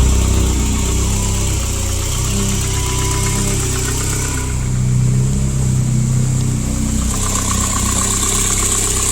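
1988 BMW E30 M3's S14 four-cylinder engine idling steadily just after a cold start, the engine note swelling a little in the middle. It runs nice and strong.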